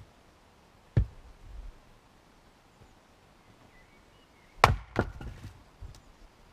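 Fiskars X25 splitting axe chopping firewood: a single knock about a second in, then a loud chop about two-thirds of the way through, followed within half a second by a second, lighter crack.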